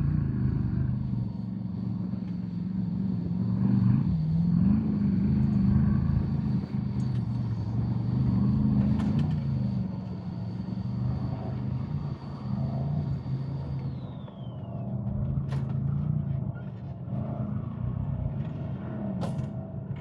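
A vehicle's engine running at low speed, its pitch dipping and rising briefly now and then, with a few short knocks near the end.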